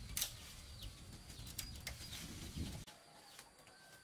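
Forest birds calling in short falling chirps, with a few sharp cracks in the longan tree, the loudest just after the start, over a low rumble that cuts off suddenly near three seconds in.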